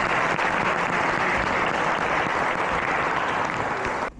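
Audience applauding steadily in a hall, called for by the host; it cuts off abruptly near the end.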